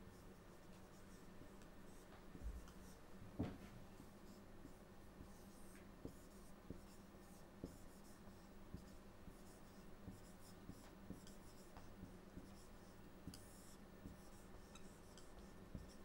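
Whiteboard marker scratching and squeaking faintly across the board as a hand writes, over a low steady hum. A soft knock comes about three and a half seconds in.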